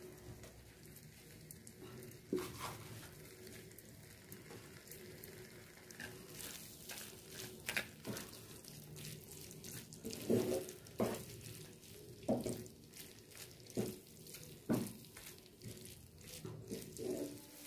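Faint sizzling of a scrambled egg and vegetable mixture frying in a nonstick pan, with a spatula scraping and tapping against the pan as it is stirred, the scrapes coming often from about six seconds in.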